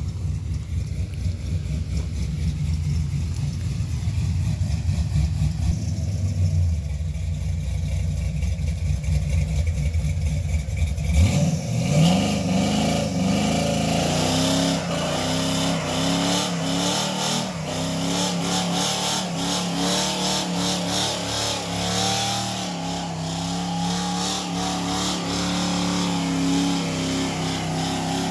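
LS-swapped square-body Chevy C10's V8 running low as the truck pulls in. About eleven seconds in it revs up sharply and is held at high revs through a burnout, with the hiss of the spinning rear tyre over it.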